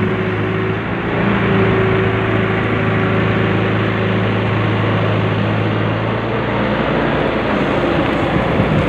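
John Deere excavator's diesel engine running under load as the bucket digs a trench, lifts soil and swings. The engine note changes about six seconds in.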